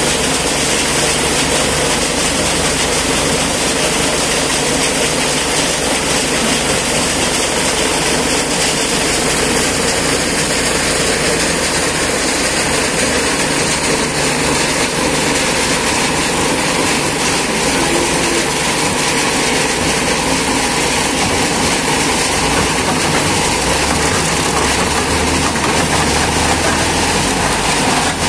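Bintang Kejora wheel loader's diesel engine running steadily and loudly under work as the machine dumps, reverses and scoops crushed stone.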